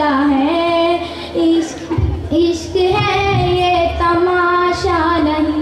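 A girl singing a naat solo with no instruments, in long held notes that waver and slide between pitches, with short breaths between phrases.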